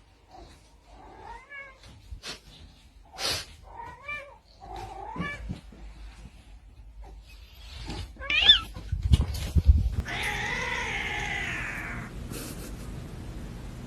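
A domestic cat meowing: several short meows, a louder one rising and falling in pitch, then one long drawn-out meow of about two seconds near the end. A couple of dull thumps come just before the long meow.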